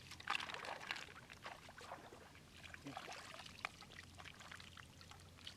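Water splashing and pouring through a wicker basket of mud snails as it is dipped and rinsed in shallow floodwater, then draining out of the basket as it is lifted. The splashing is heaviest in the first second.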